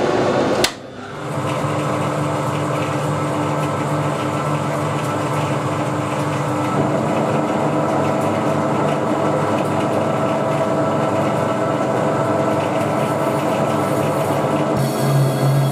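Harrison metric lathe running while screw-cutting, a steady hum and whine from the spindle and geared headstock. A sharp click and a brief drop come about half a second in, and the low hum grows louder and more pulsing near the end.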